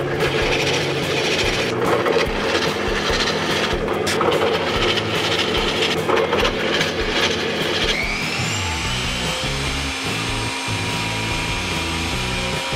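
Drill press boring into a plywood board, a steady grinding whir, over background music. About eight seconds in, a power tool's motor spins up with a rising whine and then runs steadily.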